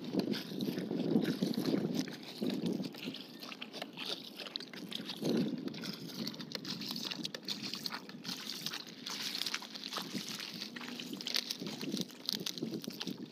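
Water sloshing and splashing around a small paddled wooden canoe: a paddle dipping and water lapping against the hull in uneven bursts.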